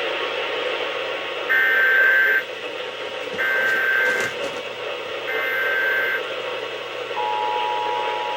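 Emergency Alert System SAME header over a steady hiss: three identical shrill data bursts, each about a second long with short gaps between, then near the end the steady two-tone EAS attention signal begins. This is the start of a Required Monthly Test from a cable TV provider's alert channel.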